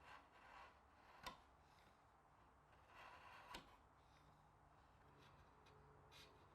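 Near silence with two faint sharp clicks and a few short soft scratching sounds.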